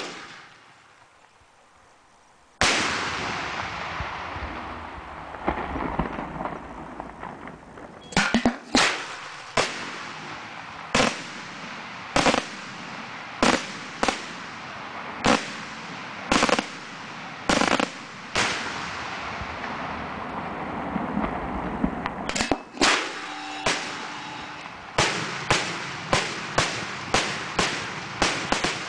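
Aerial firework shells going off: a loud bang about two and a half seconds in with a long rolling tail. From about eight seconds in comes a string of sharp bangs, roughly one a second, quickening to about two a second near the end.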